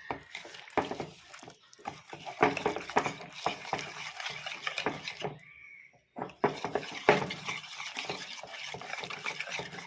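Thick maida-flour batter being stirred in a bowl: irregular wet slaps and scrapes, pausing briefly about halfway through.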